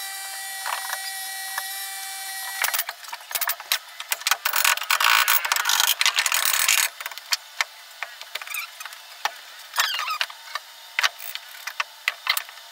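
Carpentry on wooden boards. A steady whine lasts for the first couple of seconds, then comes a loud stretch of tool noise working the wood around the middle. After that come scattered knocks and taps of timber being handled and fitted.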